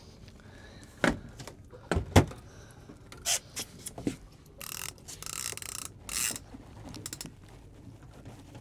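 A boat fishing rod and multiplier reel being handled: several sharp knocks and clicks in the first four seconds, then a few short bursts of hiss around the middle.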